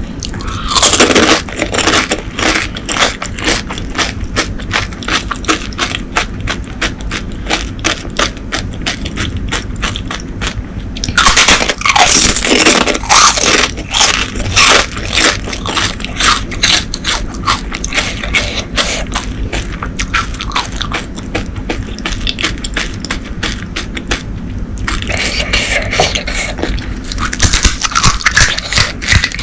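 Close-miked chewing and crunching of pani puri, the crisp fried puri shells crackling between the teeth. There are louder runs of crunching about a second in, around twelve seconds in, and near the end.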